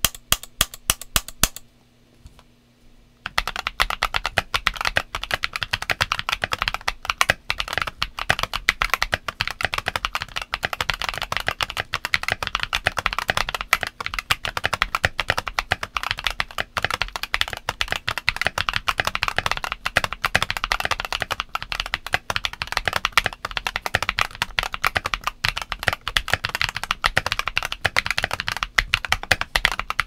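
Fast, continuous typing on a Redragon K617 keyboard with lubed Ajazz Douyu switches and Cherry-profile ABS keycaps. A few sharp clacks and a short pause come first, and steady typing starts about three seconds in.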